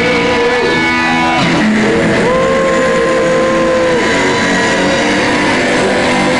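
Live rock band playing loudly, with a lead line of long held notes that bend up and down in pitch over the band.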